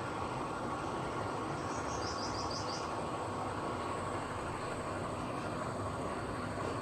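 Haier inverter air conditioner running its auto-clean cycle: a steady mechanical whirr with a faint steady whine. About two seconds in, a quick run of five high chirps sounds over it.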